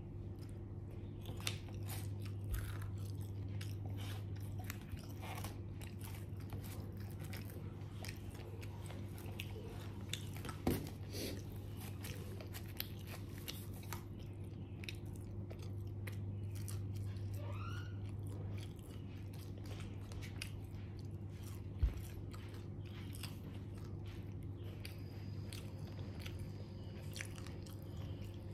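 Person biting and chewing fried chicken, with many short crunches and mouth clicks scattered throughout, over a steady low hum.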